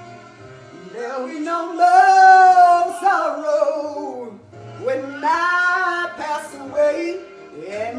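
A woman singing long held, sliding notes along to a recording playing in the room, in phrases that swell about two seconds in and again past the middle, with a new phrase starting near the end.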